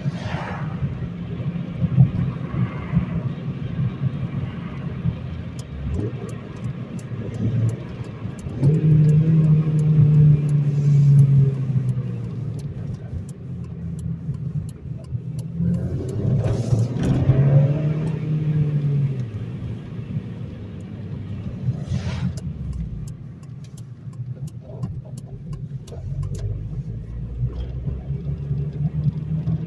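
Honda Civic Si's 2.0-litre four-cylinder engine and road noise heard from inside the cabin while driving. The engine note rises under acceleration twice, about a third of the way in and again a little past the middle.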